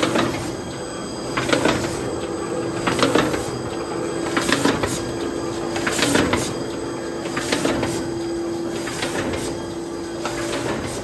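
Kolbus PE 312 bookbinding machine running through its cycle: a steady mechanical hum with one held tone, and a cluster of clacks and rattles repeating about every one and a half seconds as each product is fed and processed.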